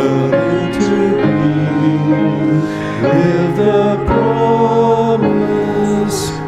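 Slow church music of held chords that change about once a second.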